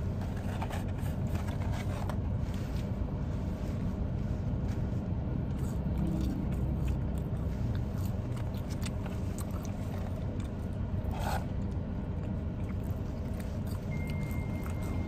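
Steady low hum inside a parked car's cabin, with light scraping and clicking as French fries are handled in their cardboard carton and eaten.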